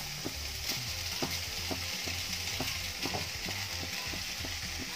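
Vegetables frying and sizzling in a nonstick kadhai as drained boiled vermicelli is tipped in and stirred with a silicone spatula. Light taps and scrapes against the pan come every half second or so.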